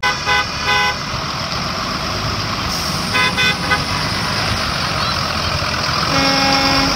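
School bus horn tooting over a steady engine and street noise: a few quick toots at the start, another cluster about three seconds in, and one longer, lower toot near the end.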